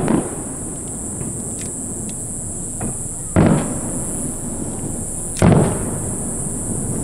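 Aerial firework shells bursting with deep booms: one right at the start, one about three and a half seconds in and another about five and a half seconds in, each fading away over a second, with a few faint small pops in between. A steady high hiss lies under it all.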